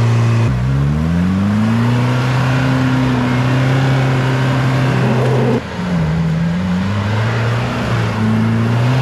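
A 4WD SUV's engine running at high revs under heavy load as it drives through deep mud ruts. The revs sag suddenly about half a second in and climb back, then sag again a little past halfway and pick up once more.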